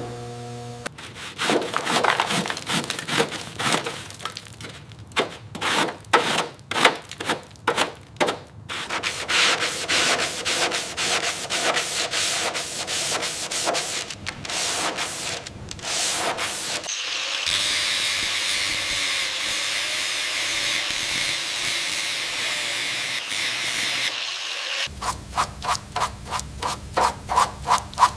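Sanding: rapid back-and-forth scraping strokes. A steady hiss takes over for about six seconds, then quicker strokes return over a steady low hum.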